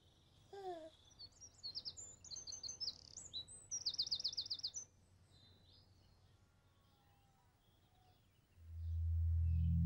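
Birdsong: chirps and whistled calls, including a fast trill of about nine notes a second near the middle. Near the end a low, sustained music chord swells in and becomes the loudest sound.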